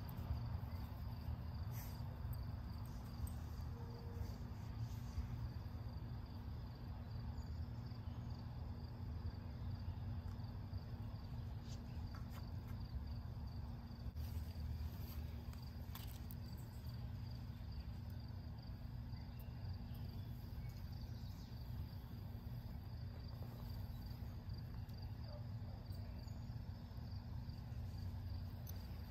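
Outdoor ambience of insects trilling steadily, over a low steady rumble, with a few faint rustles and ticks.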